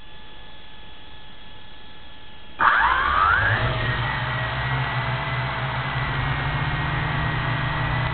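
Motor of a radio-controlled car with an onboard camera: a faint steady whine, then about two and a half seconds in a sudden loud spin-up with a rising whine. After that the car runs on with a steady whine over a rough running noise from its wheels and drivetrain.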